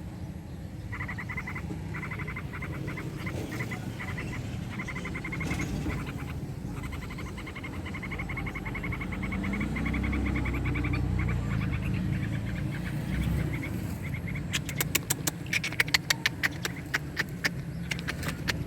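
Hungry nestling birds begging, with fast trains of high chirps repeated in bursts. Near the end comes a run of sharp, loud clicks, over a low rumble.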